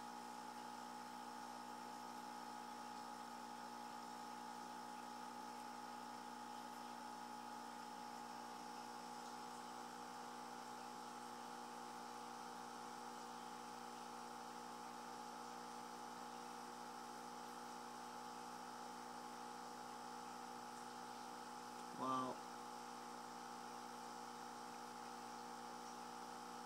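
Steady electrical hum with a stack of overtones, unchanging throughout. About 22 seconds in, a brief sound rises above it for a fraction of a second.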